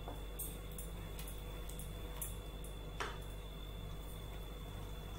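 Wooden spatula stirring a thick tomato-onion masala in a nonstick pan, with a few light taps and scrapes against the pan, the last and loudest about three seconds in, over a steady low hum.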